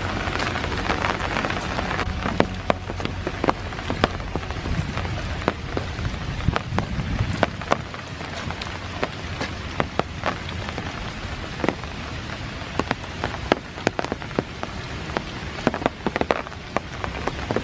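Steady rain falling, with many sharp single drops striking close by at an irregular pace.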